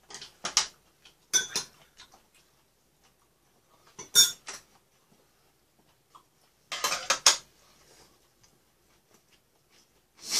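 Chopsticks clinking against ceramic bowls and plates as food is picked from dishes on a crowded table. The clinks come in four short clusters of quick ticks, with quiet between them.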